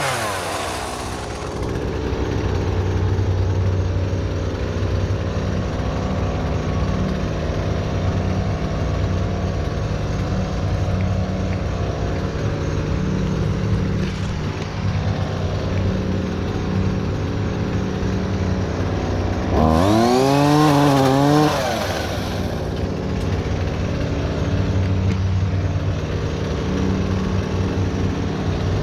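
Gas chainsaw idling, with a brief rev about 20 seconds in that rises and falls over about two seconds.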